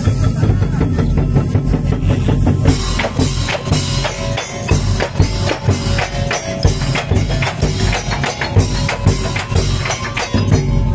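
Percussion music: drums playing a fast, steady beat with jingling percussion, the high jingles and a held melodic tone coming in louder about three seconds in.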